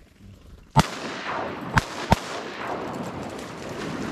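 Three shotgun shots over the marsh, the first about a second in and the next two close together about a second later, followed by splashing on the water.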